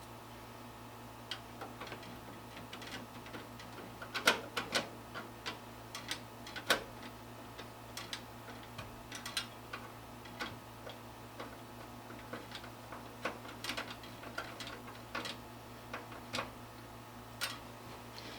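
Scattered, irregular light clicks and taps of screws, a screwdriver and metal parts being handled while a graphics card is fastened into a computer case, a few sharper knocks among them, over a faint steady low hum.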